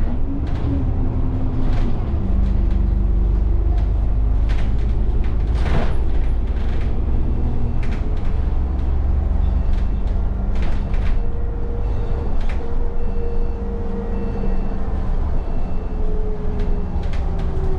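Heard from inside an Alexander Dennis Enviro400 double-decker bus under way: a steady low engine and drivetrain drone, with a whine that rises and falls in pitch a few times. Frequent rattles and knocks come from the bodywork, with one louder clunk about six seconds in.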